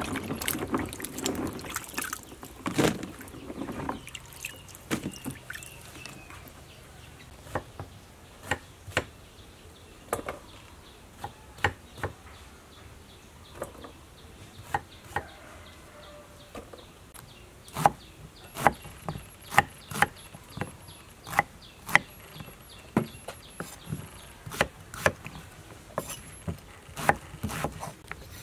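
Water sloshing as hands wash fish in a plastic basin for the first few seconds. Then a knife cutting bottle gourd knocks against a cutting board in short sharp knocks, sparse at first and then steadier and louder, about one to two a second, in the second half.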